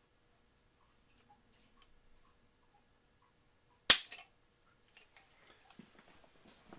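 Browning Hi Power Mark III's hammer falling once, a single sharp, loud click about four seconds in, as a trigger pull gauge draws the trigger of the unloaded pistol through its break at just under 5¾ pounds. A few small clicks follow at once, then faint handling.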